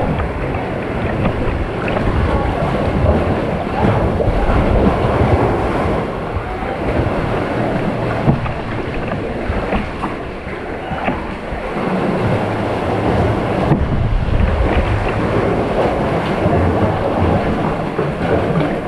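Wind buffeting an action camera's microphone in uneven gusts, over the wash and splashing of water around a kayak.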